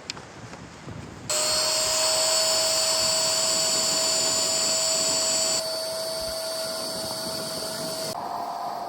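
A small electric air pump switches on abruptly about a second in and runs steadily with a whining tone. Partway through it gets a little quieter, and near the end its pitch steps slightly higher.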